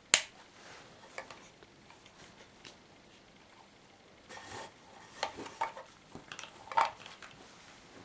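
Handling noises of a small homemade chronograph box and its cable: a sharp click just after the start, then scattered clicks, a brief rustle and a cluster of knocks, the loudest near the end, as the box is picked up, turned and set back down.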